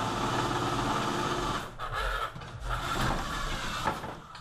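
Large corded electric drill running as it bores through steel plate. In the second half the bit catches and the drill wrenches loose and spins on the bench, its sound surging and dropping with a sharp knock near the end.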